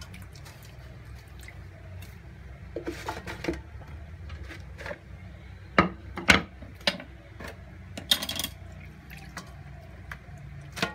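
Hands moving beef pizzle through salt water in a metal basin: splashing and scattered knocks and clinks against the basin, the sharpest a few about six and eight seconds in, over a steady low hum.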